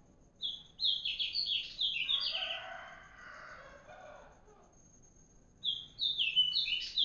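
A bird singing two quick runs of high notes, each note sliding downward, the first run about half a second in and the second near the end. A lower, drawn-out call sounds under the first run.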